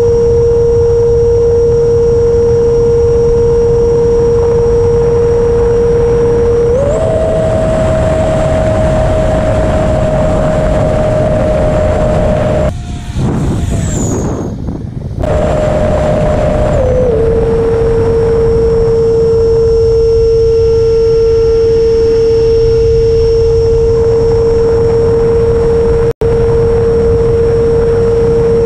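Onboard sound of an FMS Futura's 80mm electric ducted fan in flight: a steady high whine over rushing wind noise. The whine steps up in pitch about seven seconds in as the fan speeds up, and drops back about ten seconds later. The level dips briefly midway and cuts out for an instant near the end.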